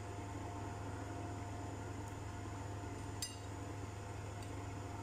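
Steady low background hum from a running appliance or fan, with one faint click about three seconds in.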